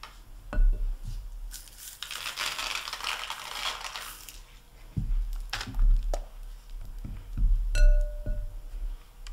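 A plastic spaghetti server scrapes and knocks against a glass bowl of melted chocolate as balls are dipped. For a couple of seconds early on there is a rustling, crinkling noise, and near the end a sharp clink rings briefly.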